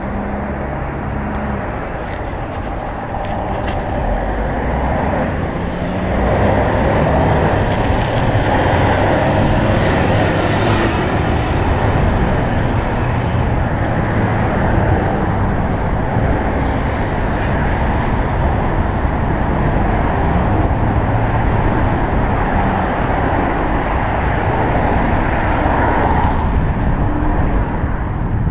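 Steady road-traffic noise mixed with the rushing noise of a bicycle ride, growing louder about six seconds in.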